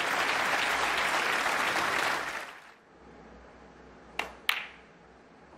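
Audience applauding, fading out about two and a half seconds in. Near the end, two sharp clicks a fraction of a second apart: a snooker cue tip striking the cue ball, then the cue ball hitting a red.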